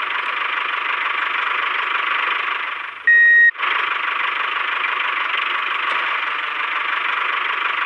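Mini tractor running with a steady mechanical whirr, broken about three seconds in by one loud, high beep lasting about half a second.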